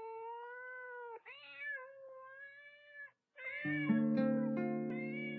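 A cat meowing in long, drawn-out calls, three in a row. With the last call, about three and a half seconds in, a sustained chord of music comes in and slowly fades.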